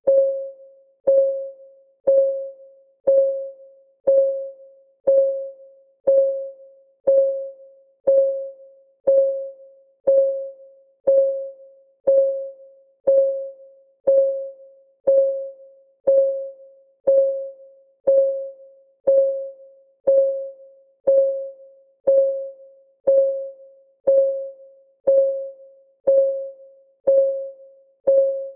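Countdown timer's clock-ticking sound: a steady tick once a second, each tick a short pitched note that rings briefly and fades.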